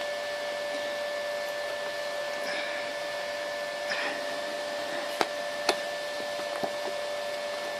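Steady mechanical hum and hiss with a constant high whine, and a few faint clicks and rustles as a book of drawings is handled.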